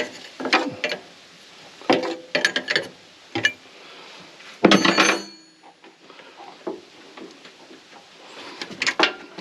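Metal tools and hose fittings clicking and clanking as a hydraulic hose is worked loose on a skid steer, with one louder, ringing metal clang about five seconds in.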